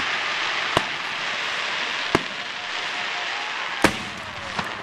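Aerial fireworks shells bursting: about five sharp booms at irregular intervals, the loudest a little under four seconds in, over a steady hiss.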